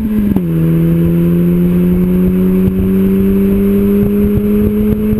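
Opel Astra F GSi's C20XE 2.0-litre 16-valve four-cylinder exhaust under power on the road. The engine note drops sharply about half a second in, as on an upshift, then rises slowly and steadily as the car pulls in the higher gear.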